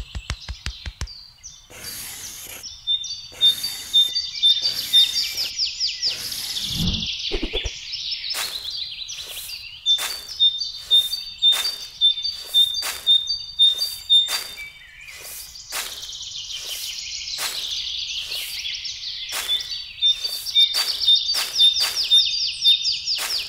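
Small birds chirping and trilling in repeated high bursts, over a run of short, sharp scrapes of a small metal palette knife digging into sand.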